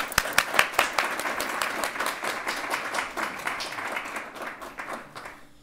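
Audience applauding: a dense patter of hand claps that thins out and dies away near the end.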